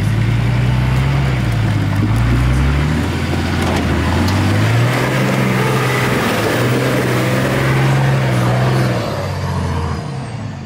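Four-wheel-drive Ford Maverick (a rebadged GQ Nissan Patrol) revving hard under load as it climbs a steep, rutted dirt track, its wheels spinning in the loose, dusty soil. The revs dip about two seconds in, are then held high, and the engine sound drops away near the end as the vehicle pulls past and up the hill.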